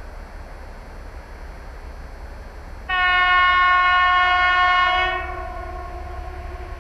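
A train horn sounds one steady, sustained blast of about two seconds, starting suddenly about three seconds in, from a train not yet in sight; it then drops off sharply and lingers faintly to the end.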